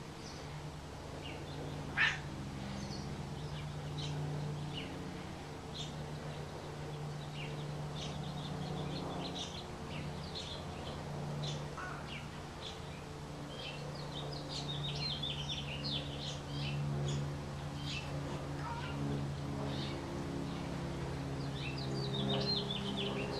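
Small birds chirping and twittering in short scattered calls, busier near the middle and the end, over a steady low machine hum. One sharp, louder sound about two seconds in.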